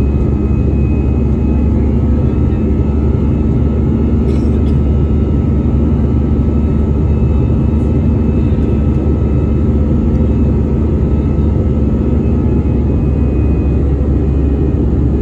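Cabin noise of an Airbus A319-111 climbing out, heard from a seat beside the wing: its CFM56 turbofans run at climb thrust as a steady low rumble, with a few faint steady tones above it.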